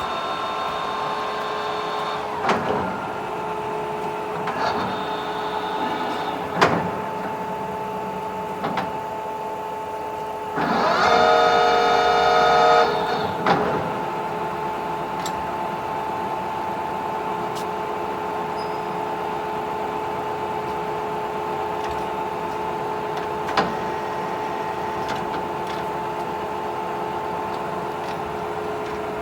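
Oerlikon DAU centre lathe running, its geared drive giving a steady whine that shifts pitch a few times. It gets louder and more many-toned for about two seconds near the middle, with several sharp clicks and knocks along the way.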